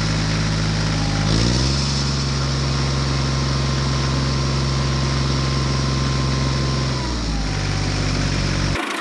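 Small engine idling, revving up about a second and a half in, holding a steady higher speed, then dropping back to idle near the end.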